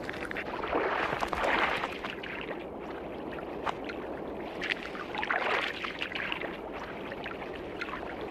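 Water sloshing and splashing as river otters surface in an opening in the river ice, with two louder splashing surges, about a second in and about five seconds in, and scattered sharp clicks.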